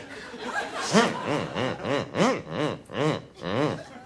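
A single man's voice making a run of short, laugh-like vocal sounds, each rising and falling in pitch, about three a second from about a second in.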